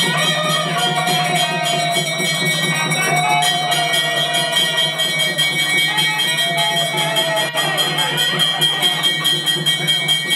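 Temple ritual music: a steady drone with bells ringing and a wavering melody above it. In the last couple of seconds the strokes settle into a fast, even beat.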